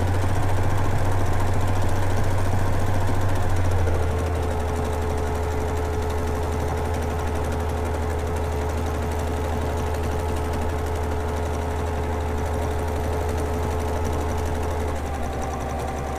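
Domestic sewing machine running steadily at speed, stitching continuously during free-motion quilting. The motor eases to a slightly lower speed and level about four seconds in.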